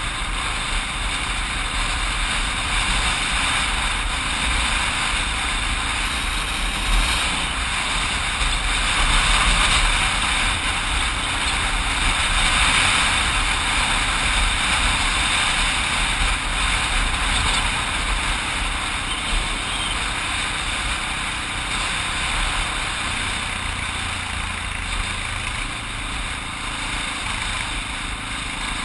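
Motorcycle riding at road speed, its engine running steadily under a constant rush of wind on the camera's microphone.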